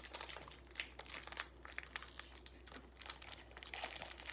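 Plastic snack packaging crinkling and crackling as it is handled and opened, in many faint, irregular crackles.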